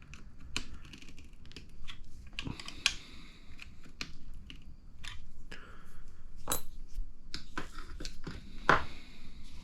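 Irregular small clicks and taps of hand tools and small metal and plastic parts being handled during RC car kit assembly, with a louder click near the end.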